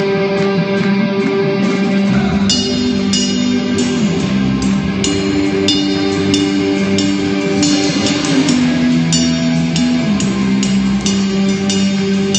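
Rock band playing live at a sound check: sustained guitar chords over a moving bass line. The drums join about two seconds in, with regular cymbal strikes.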